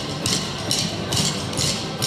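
Upbeat recorded music with drumsticks clicking sharply in time, about two strikes a second, from a group drumming with sticks on exercise balls and buckets.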